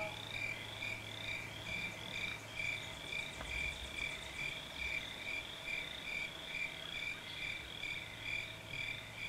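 Frogs calling in a chorus: short high peeps repeating steadily about twice a second.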